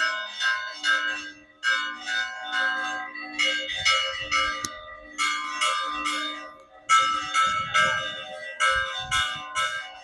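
Church bells of a small old village church rung by hand, struck in short clusters of quick strokes with brief gaps between them, the tones overlapping and ringing on. It is the festive peal announcing the start of the village fiesta.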